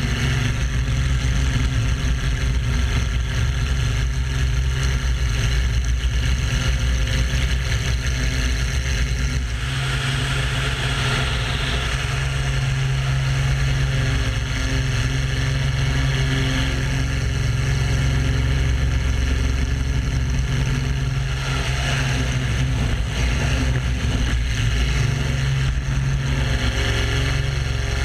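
Pitts Muscle Biplane's piston engine and propeller running steadily through aerobatic manoeuvres, heard from a wing-mounted camera with heavy air rush over the microphone. The rush of air swells about ten seconds in and again near the end.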